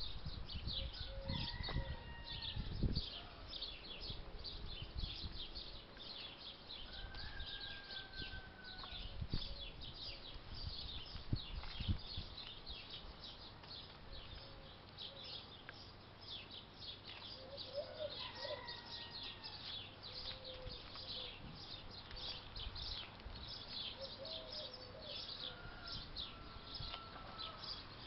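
Many small birds chirping continuously, with a few clear whistled calls now and then. A few low thumps come in the first dozen seconds.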